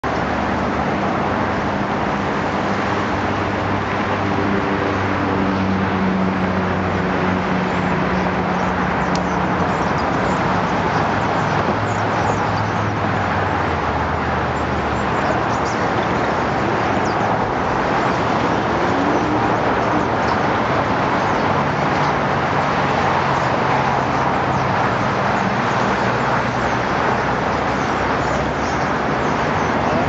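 Steady city traffic noise, with the low hum of passing vehicles' engines rising and fading a few times.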